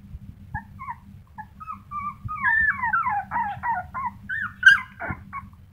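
Young puppy whining and whimpering in a rapid string of short high cries, thickest in the middle, with one sharp, louder yelp near the end. The whining comes from a puppy that cannot climb up a step.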